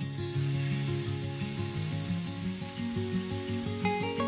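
Beef sizzling as it sears on a hot tabletop grill, turned with tongs, under background music of held, stepping notes.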